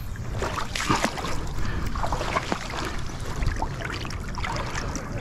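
Shallow seawater sloshing and splashing around a large striped bass held at the water's edge for release, with many small splashes and drips and a steady low rumble underneath.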